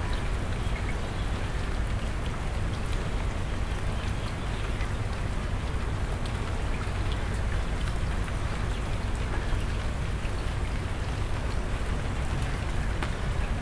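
Steady rain falling on a concrete rooftop floor and walls, with many fine ticks of drops splashing into shallow puddles.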